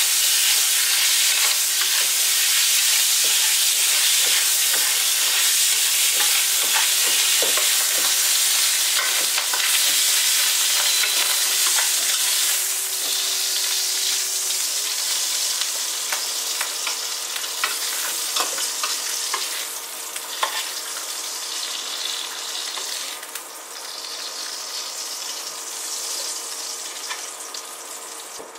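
Winter bamboo shoots and cured pork sizzling as they are stir-fried in a wok, with the spatula clicking and scraping against the metal. The sizzle is loud at first and dies down gradually over the second half.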